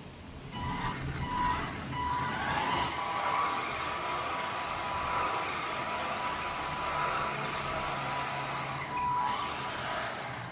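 A few short beeps, then one long steady high electronic tone that stops near the end, over a hiss and a low hum.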